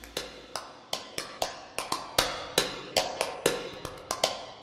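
A run of sharp, dry clicks, about three a second at uneven spacing, each dying away quickly.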